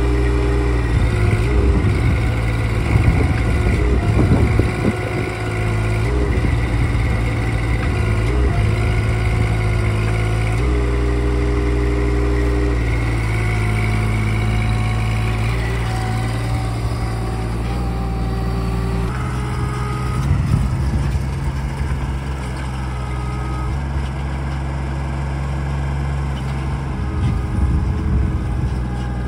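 Kubota D722 three-cylinder diesel engine of a mini excavator running steadily, its note stepping up and down several times as the machine tracks and works its hydraulics.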